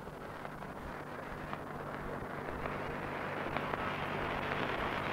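The assembled congregation in a live Quran recitation murmuring and calling out in approval between verses, a noisy crowd sound that swells steadily louder. A steady low hum from the old recording runs underneath.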